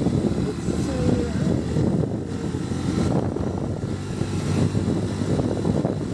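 Motorcycle engine running steadily while riding over a rough dirt track.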